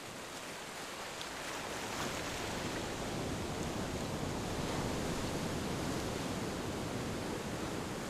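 Ocean surf breaking and washing up a sandy beach: a continuous rushing hiss of waves, growing louder over the first couple of seconds and then steady.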